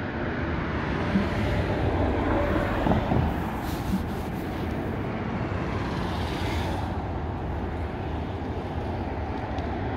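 Interstate highway traffic: a steady rumble of tyres and engines. It swells as vehicles pass close over the first few seconds, with extra tyre hiss until about seven seconds in, then settles back to an even drone.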